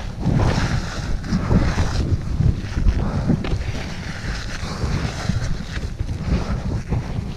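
Strong blizzard wind buffeting the microphone: a heavy, gusting rumble with a hiss above it.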